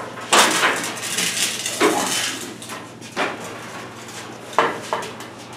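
Heavy rusty sheet-metal hood being handled and stood up on the shop floor: metal scraping and rattling, broken by several sharp clanks, the loudest just after the start.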